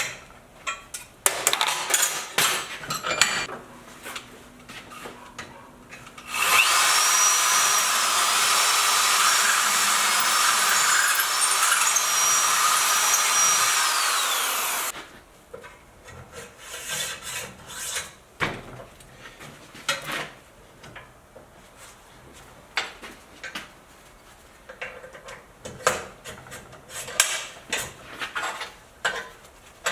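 A small high-speed power tool spins up, works on metal for about eight seconds with its whine dipping as it bites, then winds down, likely clearing burrs from the hinge knuckles. Before and after it come light clicks, knocks and scraping from handling metal parts.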